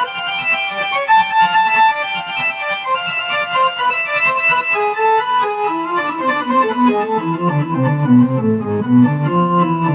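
Keyboard playing with an organ sound: a run of held notes and chords that moves from the upper register down into the bass over the last few seconds.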